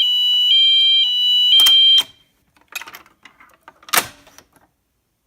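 Wheelock MT horn strobe sounding a two-tone hi-lo alarm, switching pitch every half second, until it cuts off suddenly about two seconds in. A few faint clicks follow, then one sharp click about four seconds in.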